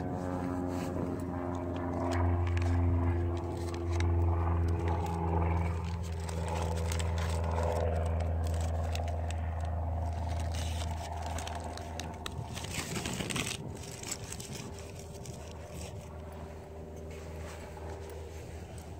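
A steady low engine-like drone that fades in the second half, with scattered crackling and scraping from flashing tape being folded and pressed around the mount's bolts and a brief rustle about two-thirds of the way through.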